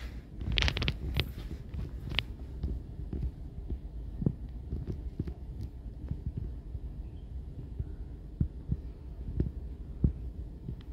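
Low steady rumble with a brief rustle about half a second in, then scattered soft thumps, typical of a handheld camera being moved and then held still.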